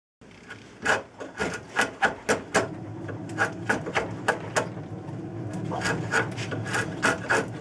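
Wood rasp scraping the end of an ash axe handle clamped in a vise, taking it down to fit the axe head's eye. The strokes are sharp and irregular, about two or three a second, thin out for a moment in the middle, then pick up again near the end.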